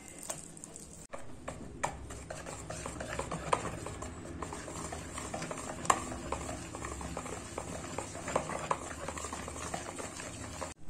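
Wire whisk beating a thin flour-and-egg batter in a bowl: a rapid, irregular run of light clicks and taps as the wires strike the bowl.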